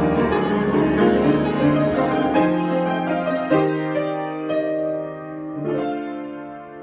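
Solo piano improvisation: slow sustained chords, with a new chord struck every second or so, growing quieter in the second half as the last chord rings out.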